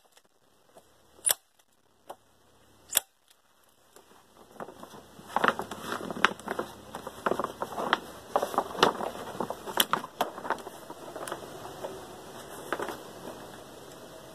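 Hand staple gun snapping staples through a heavy plastic tarp into a log roof edge: two sharp snaps in the first few seconds, then a run of snaps amid crinkling and rustling of the tarp as it is pulled and pressed down.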